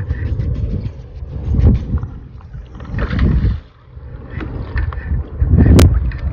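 Wind buffeting the microphone in gusts, with choppy sea water lapping at a kayak hull. A single sharp knock comes near the end.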